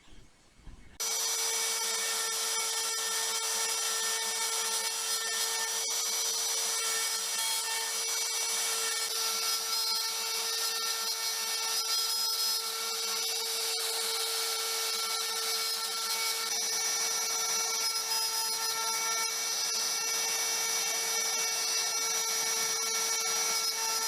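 CNC router spindle running with a steady whine while its bit cuts into the wooden sign blank. The sound starts abruptly about a second in and holds steady.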